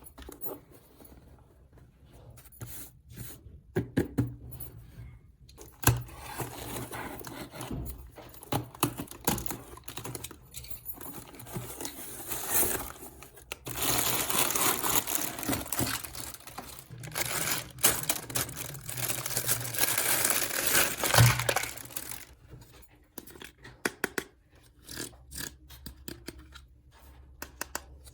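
Hands tearing and crinkling packaging, with scattered clicks and taps; a long stretch of steady tearing noise through the middle.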